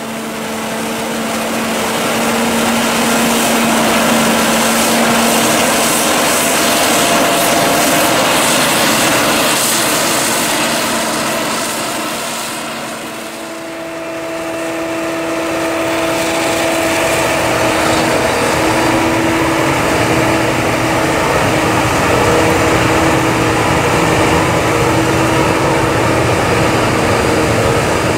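Claas Jaguar 870 self-propelled forage harvester running under load as it chops maize, a steady engine drone over the hiss of the crop going through. About halfway through the sound changes to a New Holland T7 tractor pulling a silage trailer alongside the harvester, a deeper steady engine drone.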